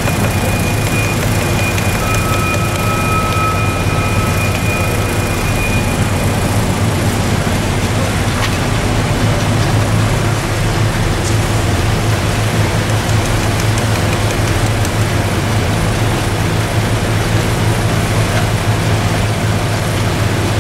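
Heavy construction machinery engine running steadily, a constant low drone under a wash of noise. A faint high whine sounds over it in the first few seconds.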